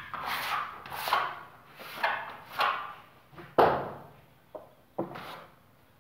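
A hand tool rubbing and scraping over fresh plaster at the wall-ceiling corner in a series of rough strokes, about one a second. The loudest is a sharp scrape near the middle, followed by two short knocks.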